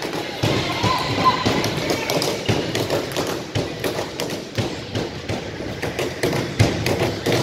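Crowd chatter echoing in a school gymnasium, with frequent irregular thuds and taps throughout.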